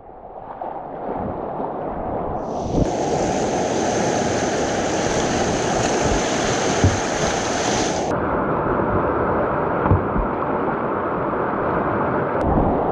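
Whitewater rushing through a river rapid, a steady dense roar of water with wind on the microphone. Its tone shifts abruptly about two and a half, eight and twelve and a half seconds in.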